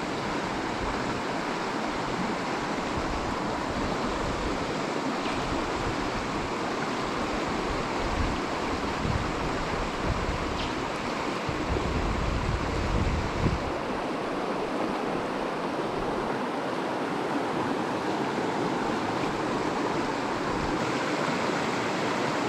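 River water running steadily over a trout stream's riffles and run, an even rushing. Around the middle come a few low rumbles on the microphone.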